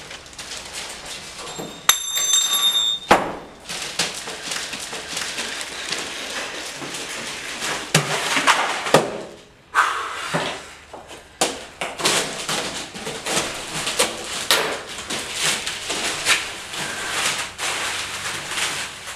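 Newspaper rustling, crumpling and tearing as a newspaper-wrapped box is handled and its paper stuffing pulled out, dense crackling throughout. Sharp knocks and a short high ringing about two seconds in.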